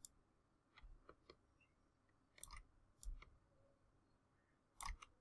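A handful of faint, scattered computer mouse clicks against near silence, as arm-gesture replays are set off one by one.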